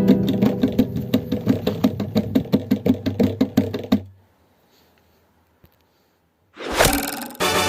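Background music with a quick, even plucked beat that stops about four seconds in. A short near silence follows, then a loud whoosh, and a new music cue starts near the end.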